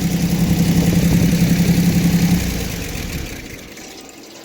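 Engine running steadily with a fast, even pulse, then shut off about two and a half seconds in and dying away.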